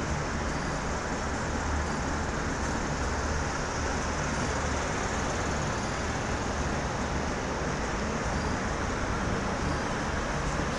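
Six-car V/Line VLocity diesel multiple unit rolling past as it departs, its underfloor diesel engines giving a steady low drone under an even rumble of the passing carriages.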